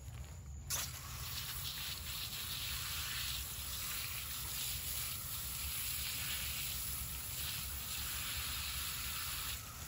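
Garden hose spray wand spraying water over a fossil clam held in the hand: a steady hiss of spray and splashing that starts suddenly with a click about a second in and cuts off just before the end.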